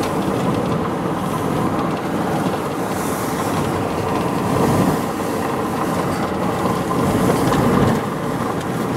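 Steady road and wind noise inside a moving vehicle.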